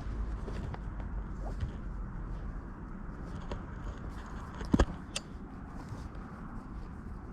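Footsteps of a person walking, with a sharp knock about five seconds in and a smaller one just after.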